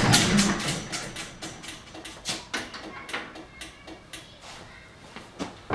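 A series of irregular short clicks and knocks, louder at first and growing quieter.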